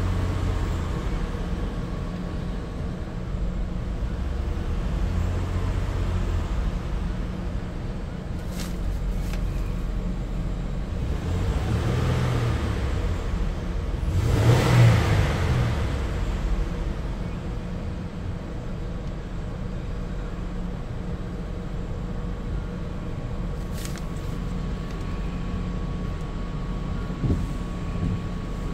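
Ford car engine idling, heard from inside the cabin as a steady low hum, with a louder swell about twelve seconds in and a stronger one about fifteen seconds in.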